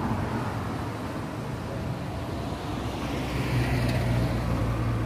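Street traffic: a motor vehicle's engine rumbling under the general road noise, growing louder about three seconds in.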